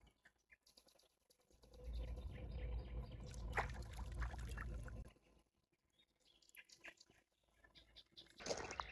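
Lake water sloshing and splashing as a carp is let go from a wet retaining sling at the margin, for about three seconds starting some two seconds in, with one sharper splash in the middle.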